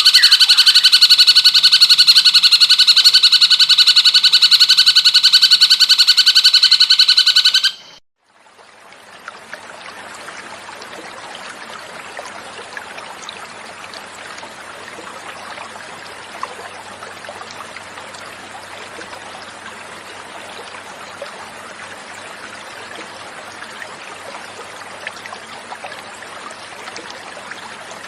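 Cucak cungkok bird song, a loud rapid trill held on a steady pitch, cuts off suddenly about eight seconds in. After a brief gap, flowing water runs steadily for the rest, much quieter.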